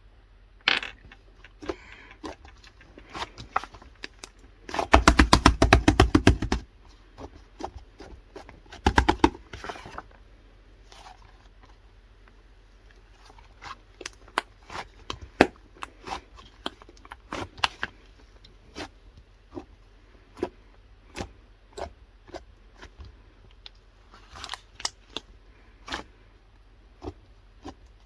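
Slime being pressed, stretched and poked by hand, giving a steady run of sharp clicks and small pops. About five seconds in there is a dense rapid crackle lasting over a second, and another shorter one around nine seconds in.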